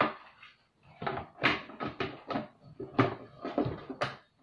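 Hard plastic knocking and clicking as a flat-mop wringer bucket and its grey plastic insert are handled and fitted together, a quick irregular run of a dozen or so sharp knocks.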